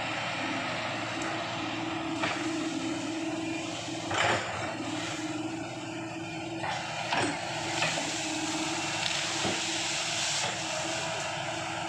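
Hyundai 210 excavator's diesel engine running with a steady hum. A few sharp clanks cut through it, the loudest about four seconds in.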